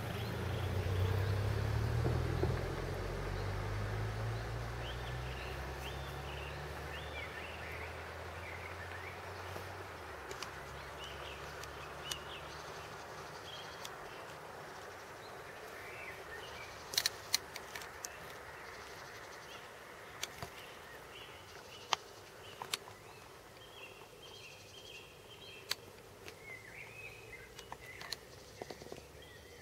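Outdoor ambience: a low engine rumble that fades away over the first ten seconds or so, then birds chirping and a few sharp clicks.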